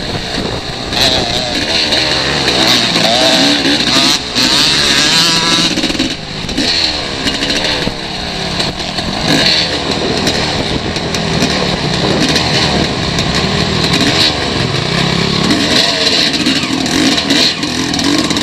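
Dirt bike engine heard close up from the rider's own bike, revving up and down over and over as it accelerates and shifts around a motocross track, with other bikes running nearby.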